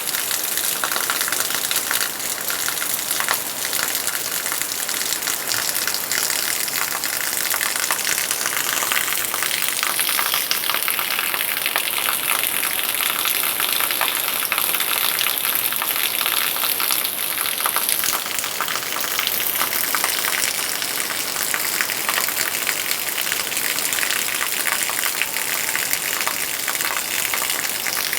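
Heavy rain pouring down: a steady, dense hiss of drops striking surfaces, made up of countless small impacts.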